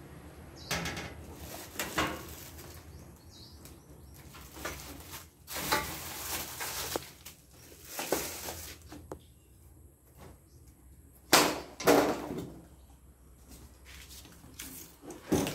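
Parts of a flat-packed dish drainage rack being handled in their cardboard box: irregular rustling and scraping of cardboard and plastic, with knocks from the frame pieces. Two sharp knocks close together a little past the middle are the loudest.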